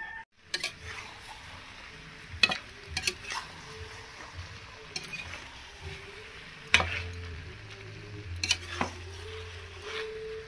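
Chicken curry being stirred with a metal ladle in a steel kadhai, with the ladle scraping and knocking sharply against the pan several times over a steady sizzle of the frying masala.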